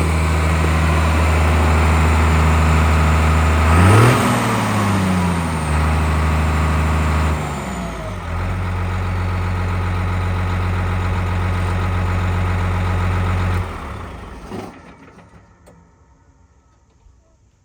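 New Holland 8360's 7.5-litre six-cylinder turbocharged diesel running steadily, with a brief rev-up and drop about four seconds in. Near the end the engine is shut off and runs down.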